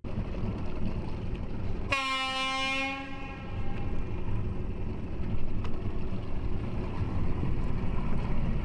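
A single long horn blast about two seconds in, lasting about a second and a half and fading away, over a steady low rumble.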